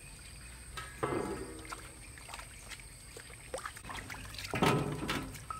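Water dribbling and sloshing as halved green papayas are rinsed in a metal basin of water and lifted out dripping, with small knocks on metal and a louder splash near the end.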